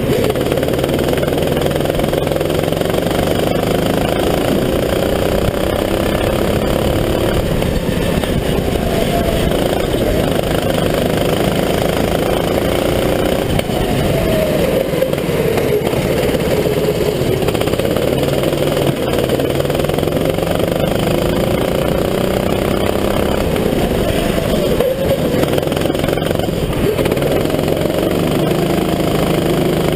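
Go-kart engine running hard on track, its pitch rising and falling again and again as the revs climb on the straights and drop into corners.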